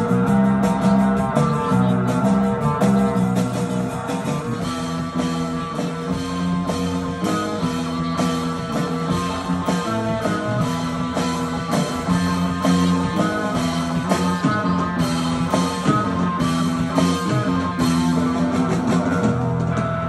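Live surf rock instrumental: electric guitar playing a melody over a drum kit.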